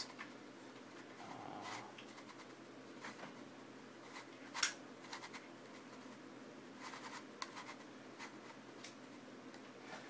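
Faint clicking and scraping of a Meffert's Gear Shift plastic gear puzzle as its faces are turned by hand, with one sharper click about halfway through.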